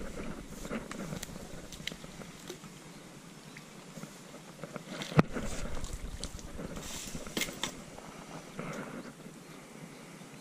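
Small clicks and rustles from fishing tackle being handled, with one sharp knock about five seconds in, as the landing net pole is moved.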